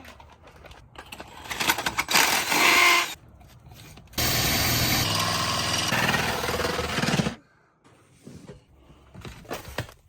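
A power tool runs steadily for about three seconds, starting a little past four seconds in and cutting off abruptly. Before it come a couple of seconds of irregular, uneven scraping and knocking noise.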